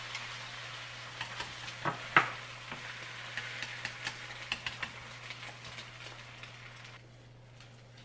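Beaten egg sizzling in a rectangular tamagoyaki pan, with chopsticks tapping and scraping against the pan and a sharp knock about two seconds in. The sizzle fades and drops away about seven seconds in, leaving only light taps.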